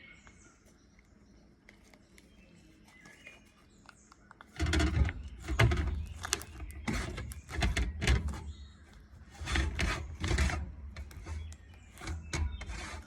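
Faint at first, then from about four and a half seconds in a string of irregular thumps and knocks with a heavy low end.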